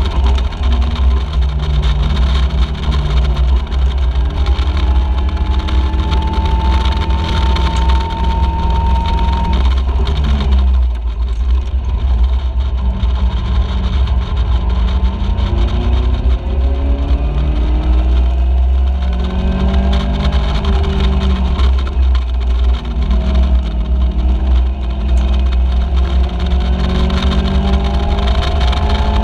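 Onboard sound of a Caterham Seven race car's four-cylinder engine at racing speed, its revs climbing again and again through the gears, with a brief lift off the throttle about ten seconds in. Heavy wind buffeting in the open cockpit rumbles underneath.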